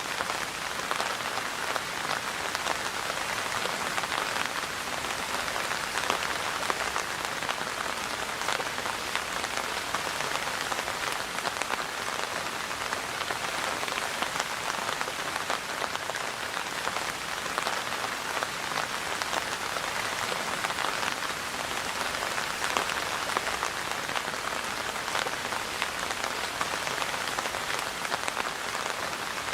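Steady rain falling and pattering on surfaces: a dense, even hiss of many drops with no let-up.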